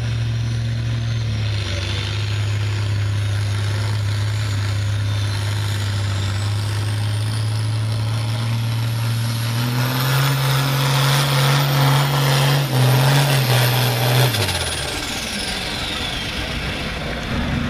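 Turbocharged diesel engine of a red International Harvester pulling tractor working hard against a weight-transfer sled. The engine note steps up and gets louder about ten seconds in and holds at full throttle, with a high turbo whistle climbing steadily. Near the end the engine drops off and the whistle winds down.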